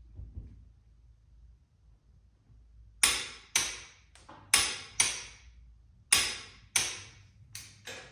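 Hammer blows, about eight sharp strikes coming in pairs roughly half a second apart, each ringing briefly.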